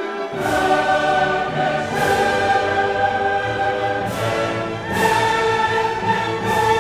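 Background music: a choir singing with an orchestra, held chords changing every second or two.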